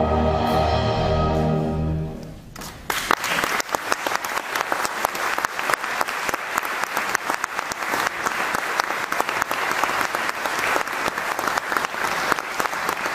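A brass band with a solo flugelhorn holds its final chord, which dies away about two seconds in. Then steady applause starts and carries on.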